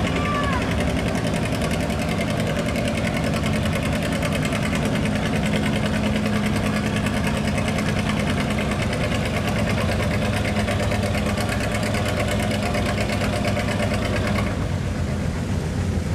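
Farm tractor engine running steadily and loudly, easing off about a second and a half before the end.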